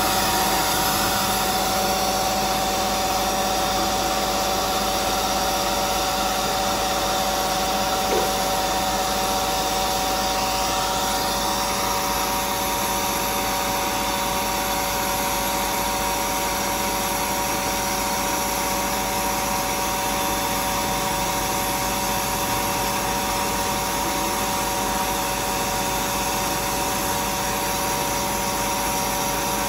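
An electric blower motor running steadily: a constant whine over rushing air, with a small knock about eight seconds in.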